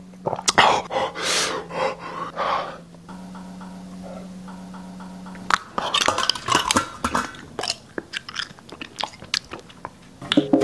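Exaggerated mouth-made eating sounds: wet chewing and smacking, then a low steady hum for a couple of seconds, then a run of sharp crackly crunching clicks.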